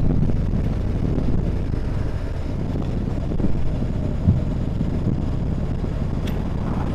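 Motorcycle engine running under way, with wind rushing over the microphone.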